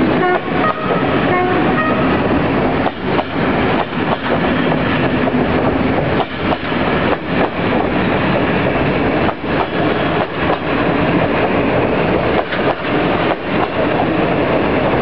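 Passenger coaches of an express train rolling past, steel wheels clattering over rail joints and points in an irregular run of knocks over a steady rumble. A few brief high squeaks in the first two seconds.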